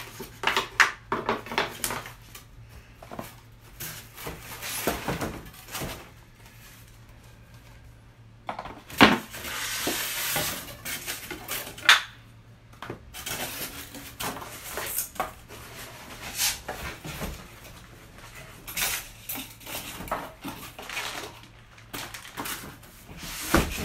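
Flat-pack desk panels and polystyrene packing being handled and set down: a scattered run of knocks and clatters of boards against each other, with a rustling, scraping stretch around nine to eleven seconds in.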